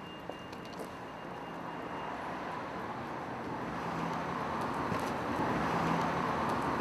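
Street traffic: a car passing, its noise growing louder through the second half.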